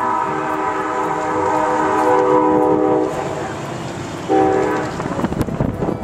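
Train horn sounding several notes together as a chord: a long blast of about three seconds, then a short blast about a second later.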